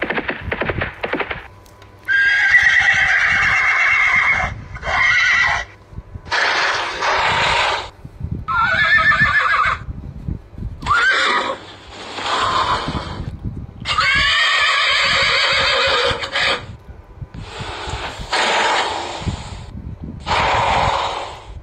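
Horses neighing and whinnying, a string of about ten wavering calls one after another, each one to two and a half seconds long. They are preceded by about a second and a half of rustling and clicking.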